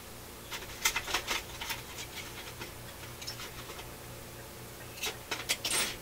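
Light clicks and rattles of small parts being handled at a workbench, in a cluster about a second in and another near the end, over a faint steady hum.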